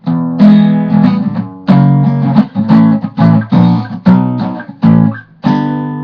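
Acoustic guitar strumming the song's closing outro in a quick rhythm of chords, breaking off and then ending on a final chord that rings out and fades.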